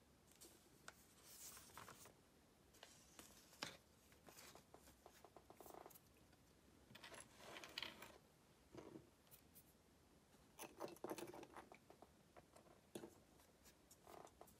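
Faint, irregular clicks, scratches and rustles of small plastic model kit parts being handled and fitted together.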